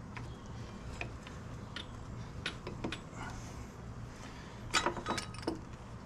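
Motorcycle rear brake caliper and pads being handled and jiggled to seat over the rotor: scattered light metallic clicks, with a short cluster of louder clinks about five seconds in, over a low steady hum.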